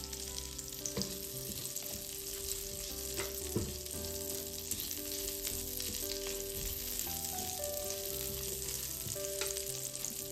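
Diced chorizo sizzling in hot oil in a nonstick pan, with many small crackles and pops, while a spatula stirs the pieces around partway through.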